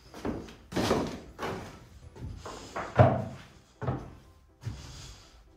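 Footsteps thudding on wooden stair treads cut from 2x12 lumber: about seven heavy steps at a walking pace, the loudest about three seconds in.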